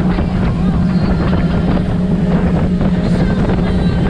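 Offshore speedboat running flat out, its engines giving a loud, steady drone, mixed with wind buffeting the microphone and the rush of spray from the wake.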